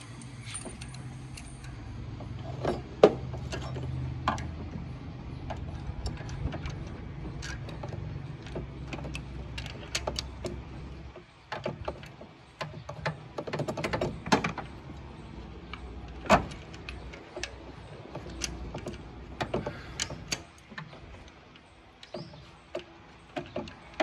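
Metal hand tools clinking and knocking irregularly against engine parts as bolts are worked on during an engine refit, with a low steady hum under the first half.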